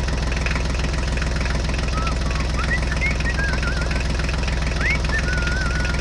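Tractor engine running steadily at idle, a low, even chugging.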